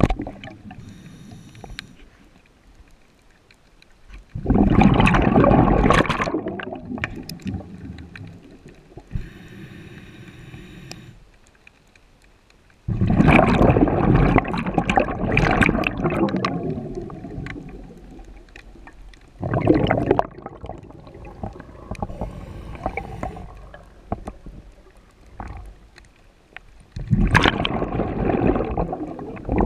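Scuba diver breathing through a regulator underwater: loud gurgling bursts of exhaled bubbles come every several seconds, four times, with quieter hissing inhalations between.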